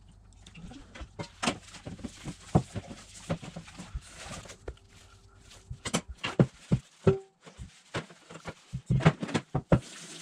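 Sticky bread dough with grated carrot being kneaded by hand in a stainless steel bowl: irregular wet slaps and squelches, denser in the second half.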